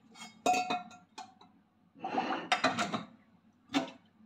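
Kitchenware being handled: a stainless steel colander clinks with a short ring as it is set down on the counter, followed by a rattling clatter and a sharp knock as a plastic container is handled in the sink.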